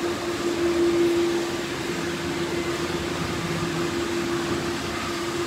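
A steady electric motor hum at one constant pitch over a soft hiss.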